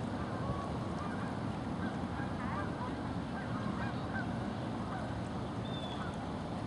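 Faint, short calls of waterfowl over a steady low rumble of wind noise, with one higher falling call near the end.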